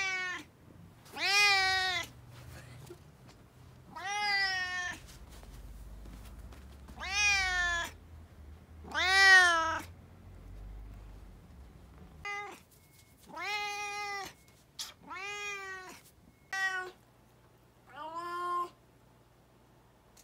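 Brown tabby cat meowing over and over, about eleven meows one to three seconds apart, each rising and then falling in pitch; the later ones are shorter and come more quickly.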